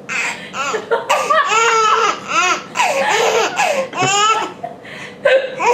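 A five-month-old baby laughing in a string of short, high-pitched bursts with brief breaths between them.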